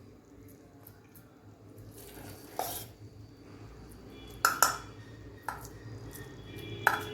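A spoon scraping and clinking against an idli plate as the batter is spooned into its moulds: a short scrape about two and a half seconds in, then several sharp metal clinks with a brief ring.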